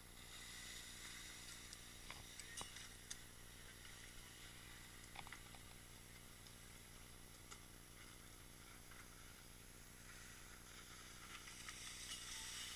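Near silence: a faint steady hiss with a few soft ticks scattered through it.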